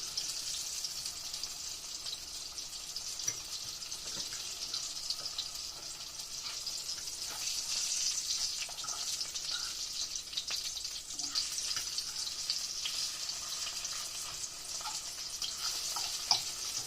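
Green tomato slices coated in flour and cornmeal sizzling in hot frying oil, a steady crackling hiss with scattered small pops and spatters.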